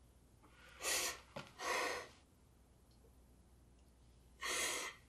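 A person's heavy, gasping breaths: two close together about a second in and a third near the end.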